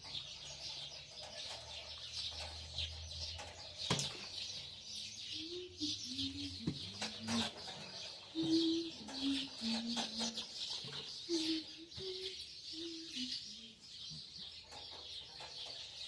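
Small birds chirping and twittering throughout, with a chicken clucking in a string of short, low notes through the middle. A single sharp knock about four seconds in.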